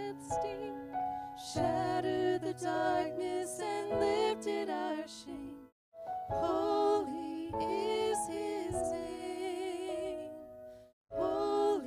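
Two women singing a Christmas song into microphones, one voice at first and both together from about halfway, over instrumental accompaniment of long held chords. The sound drops out to silence for a moment twice, about six seconds in and near the end.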